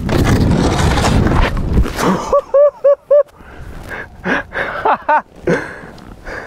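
Skis sliding fast over snow, a loud rushing hiss on the skier's body mic, which stops about two seconds in. Then the skier's own voice: four quick huffs in about a second, followed by scattered hard breaths as he stops.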